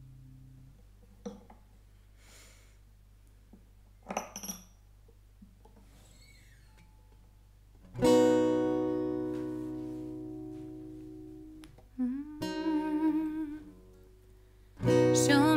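Acoustic guitar between songs: a chord rings out and fades, then after a quiet stretch with a few soft knocks, one strummed chord about halfway rings and slowly dies away. A short wavering note follows, and fresh strumming starts near the end.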